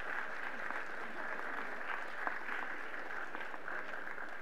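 Audience applauding steadily, a dense, even patter of many hands clapping.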